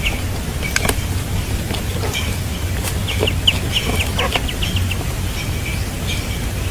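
Birds calling in short, high, repeated chirps, with a quick run of calls a little past three seconds in and a few sharp clicks, over a steady low rumble.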